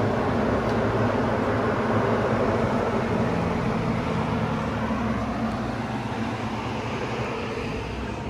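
A 1988 Toyota Supra MK3 running steadily at a standstill: a low steady hum under a broad rushing noise, easing off slightly over the last few seconds.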